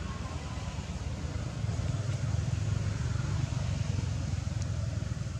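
Low rumble of a road vehicle passing, growing louder about two seconds in and easing toward the end.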